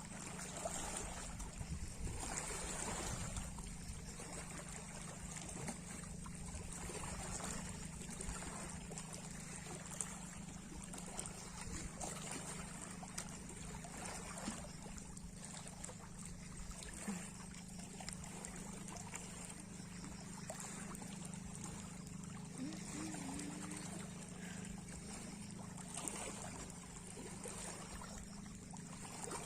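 Sea waves washing and lapping, in gentle swells, over a steady low hum.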